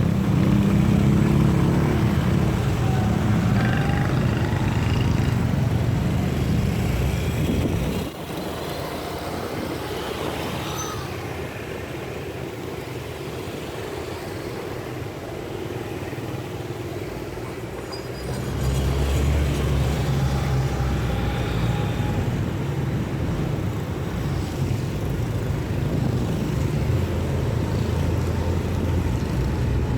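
Street traffic with motor vehicle engines running close by. The engine noise drops suddenly about eight seconds in and comes back strongly around eighteen seconds.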